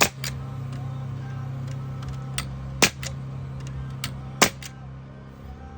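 Pneumatic nail gun firing nails into wood: three loud sharp shots about a second and a half apart, with lighter clicks in between, over a steady low hum.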